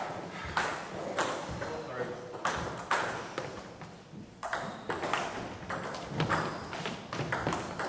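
Table tennis ball knocking off the bats and the table in a rally, a run of sharp clicks a fraction of a second to a second apart, ringing in a large sports hall.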